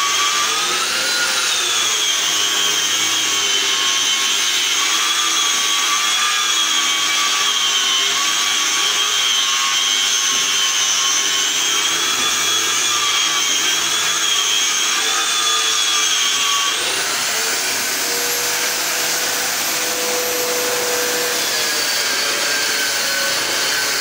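Handheld electric round-pad wall sander (drywall sander) running against a wall in a steady high-pitched whine. About seventeen seconds in, its tone changes suddenly to a higher whine.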